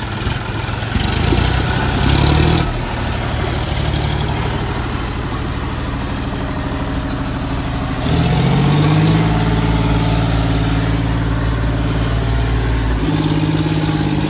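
John Deere tractor's diesel engine working under load as it pushes a stuck, loaded trolley out of mud from behind. The revs climb about eight seconds in and hold high.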